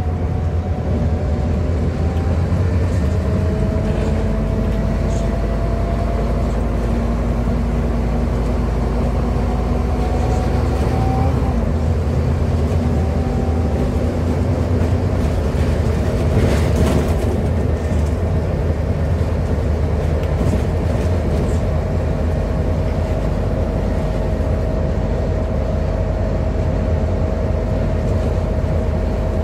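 Interior sound of a Scania N280UD double-decker bus's DC09 nine-litre five-cylinder diesel and ZF Ecomat automatic gearbox pulling away: a deep engine rumble with a whine rising in pitch for about ten seconds, a gear change, then a steady note at cruising speed. A brief rattle about halfway through.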